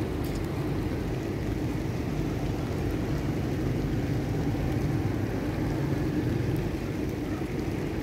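A steady low engine drone with an even hum, unchanging in level.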